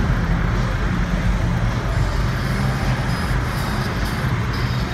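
Steady road and engine noise of a car driving in city traffic, heard from inside the car.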